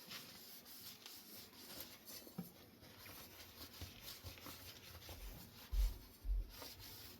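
Faint rubbing and scratching of a cleaning wipe on a ceiling fan part, with two soft low bumps near the end as the part is handled.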